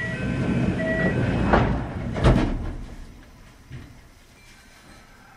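Kintetsu 5800 series commuter train at a station stop: a loud burst of noise with knocks and two short beeps about a second apart, from the train's door and air equipment around departure. It dies down after about three seconds.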